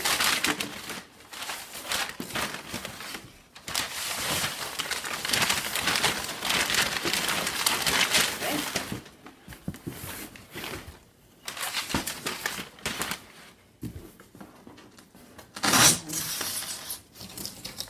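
Packing paper crinkling and rustling as it is pulled out of a shipping box and crumpled, in bursts with short pauses, the loudest and sharpest about two seconds before the end.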